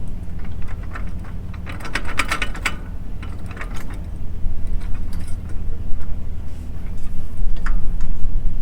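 An engine idling steadily, with metallic clinks and rattles about two seconds in and a few more later, as an implement's jack stand is flipped up.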